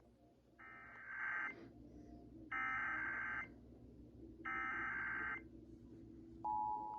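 Emergency Alert System SAME header: three bursts of digital data screech, each just under a second long and about two seconds apart. About six and a half seconds in, the EAS attention signal starts, a steady two-tone beep of 853 and 960 Hz held on.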